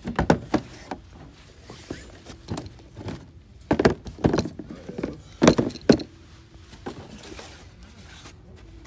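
Cardboard shoe boxes being handled and moved: a series of irregular thuds and knocks, coming in clusters.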